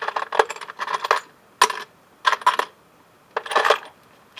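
Loose metal screws and bolts clinking and rattling against each other in a plastic tub as a hand rummages through them, in four short bursts of jangling.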